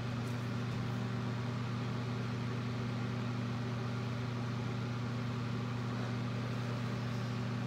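Steady low electric hum, like a small motor running, with no clicks or knocks over it.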